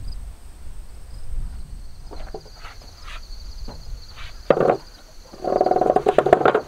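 Knocks and thuds of lumber as a framed wooden stud wall is handled and lifted, with a sharp thud about four and a half seconds in. Near the end comes a long, strained groan lasting about a second. Insects trill high and steady throughout.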